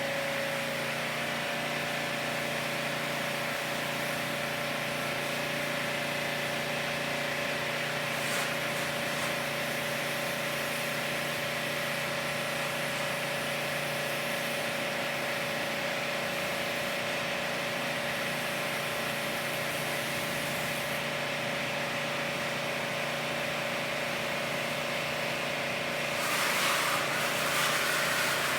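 Steady machine hum with a constant whine, as of cleaning equipment running during air-conditioner cleaning. Near the end a louder hissing starts.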